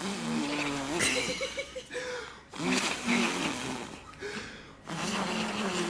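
A dog vocalizing in long, drawn-out whining howls whose pitch slides up and down, in three bouts with short breaks between them.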